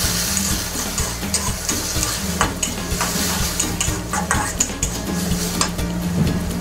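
Onions and diced tomato sizzling in a hot wok while a metal slotted spatula stirs and tosses them, scraping and clinking against the pan many times.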